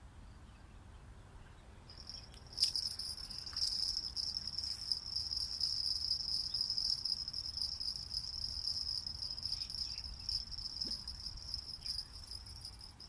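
Insect trilling: a steady, high-pitched buzzing trill that starts about two seconds in.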